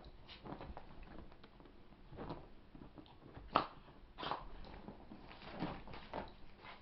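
A small long-haired terrier squirming and rubbing itself against fabric couch cushions after a bath, making irregular scuffling and rubbing noises. The loudest comes about three and a half seconds in.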